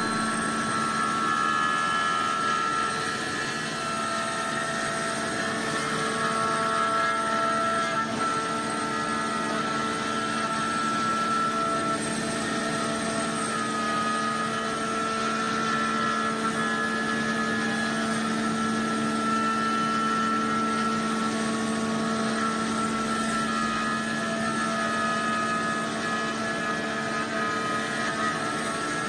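CNC router milling curved grooves into an insulating board: a steady machine hum and whine from the spindle and cutter, holding an even level throughout.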